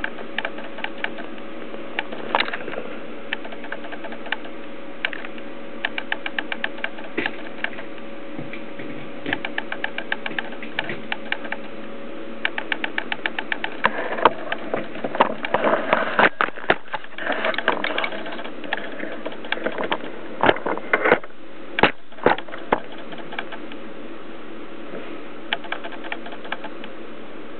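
Camera auto-focus motor clicking in quick runs of ticks over a steady hiss, with louder, irregular clicks and knocks from about halfway through.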